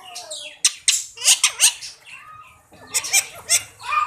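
A pet Indian parrot squawking and chattering in a rapid series of short, harsh calls.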